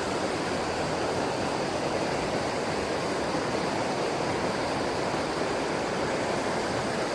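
Steady rush of river water pouring over a small waterfall into its plunge pool.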